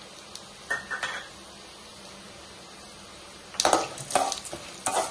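A metal ladle stirring chana dal in hot oil in a metal kadai: a brief clink about a second in, then from about three and a half seconds a run of loud scraping strokes against the pan, over faint sizzling of the frying dal.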